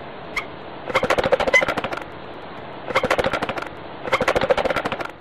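Marabou stork clattering its bill: a single sharp clack, then three runs of rapid wooden-sounding clacks, each about a second long, over a faint steady hiss.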